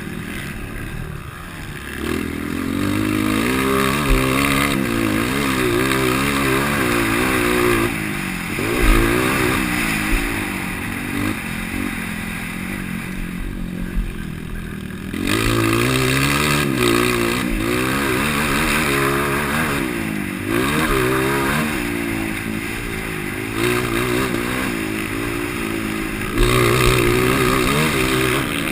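Motocross bike engine in a 230 cc race class, ridden hard: it keeps revving up and falling back as the throttle is opened and shut through the track's sections.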